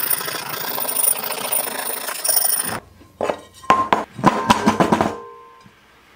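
A stiff hand wire brush scrubbing rust off the bottom of a cast iron pan in quick, scratchy strokes, which stop suddenly. Then the cast iron pan knocks against the workbench about half a dozen times, each knock ringing briefly, as loose rust is shaken out of it.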